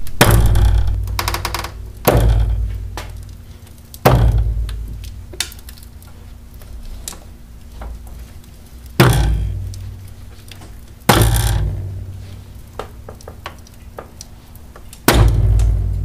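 Heavy metallic clunks from the failed upper bearing mount of a 2000 Chevy Venture's front coil-spring strut, six of them at uneven spacing, each booming and dying away over a second or two. The clunk is the sign of a totally failed upper strut mount bearing.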